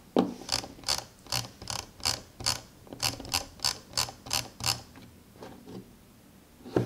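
Razer Basilisk scroll wheel turned with its resistance set to full, giving about a dozen notched ratchet clicks, roughly three a second, that stop after about five seconds. A thump comes just before the clicks and another near the end.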